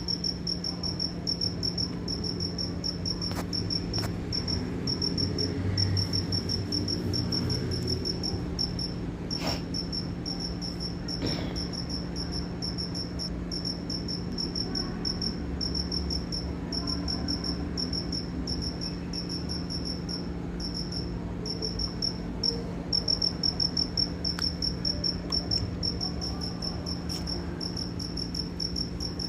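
Cricket chirping steadily: a high, even chirp repeating a few times a second with only brief pauses. A steady low hum runs underneath, with a few faint clicks.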